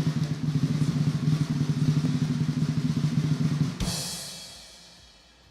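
Drum roll building suspense before an announcement, a fast steady rattle that ends about four seconds in on a crash that rings away.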